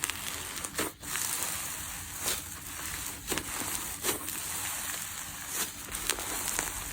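Slime being squished and worked by hand, giving irregular sticky clicks and crackles.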